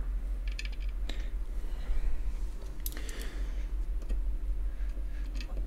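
Small metal screws clicking as they are handled and set into the mounting holes of a graphics card's cooler, with a screwdriver ticking against them: a quick cluster of light ticks about half a second in and a single click near three seconds, over a steady low hum.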